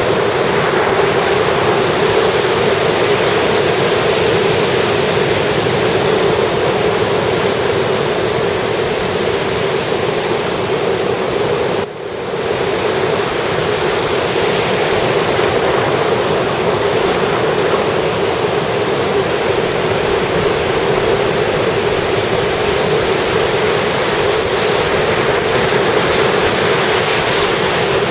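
Ocean surf washing continuously onto a beach, a steady rushing noise with one brief drop about twelve seconds in.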